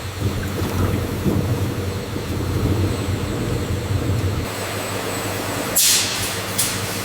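Juice-factory machinery running with a steady low hum, and a short burst of loud hissing about six seconds in.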